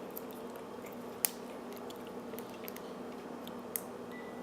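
Small metallic clicks and scratches of a lock pick and tension wrench working in a wafer padlock's keyway, with a sharper click about a second in and another near the end.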